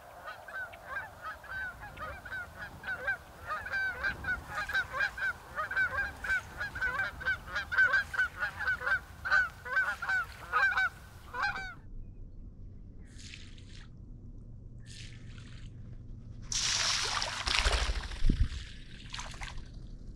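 A flock of geese honking in flight, many short calls overlapping, stopping about twelve seconds in. A brief rushing noise follows near the end.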